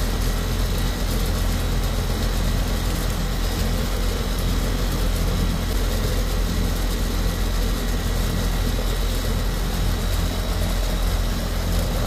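Air-conditioning condensing unit running under test: a steady hum from the compressor and condenser fan.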